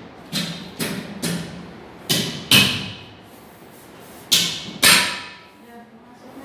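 A series of about seven sharp thumps and rustles, each dying away quickly, from large white sheets being handled and shifted on the floor.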